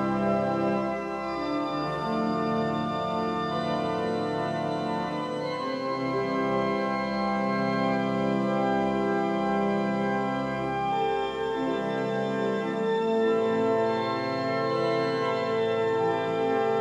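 Organ music: slow, held chords that change every few seconds.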